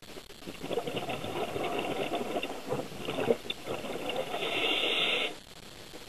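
Scuba diver's exhaled air bubbling out of the regulator, heard underwater: a gurgling rush of bubbles for about five seconds that cuts off suddenly.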